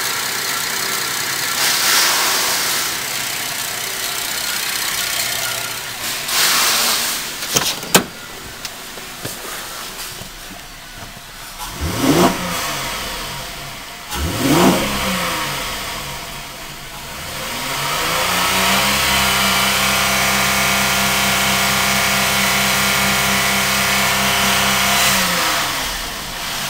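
2011 Holden Commodore's 3.6-litre V6 running at idle, with a sharp click about eight seconds in. The engine is then blipped twice, its pitch rising and falling quickly, and then revved up and held at a steady raised speed for about seven seconds before dropping back toward idle.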